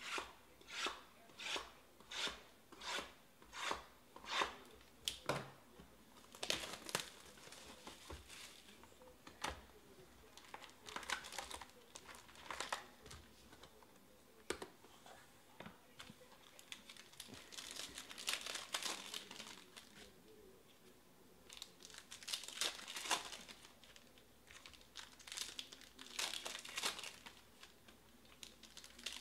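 Foil trading-card packs being torn open and their wrappers crinkled, with cards handled between. It begins with a run of about ten evenly spaced scratchy strokes over the first five seconds, then irregular crinkling and tearing.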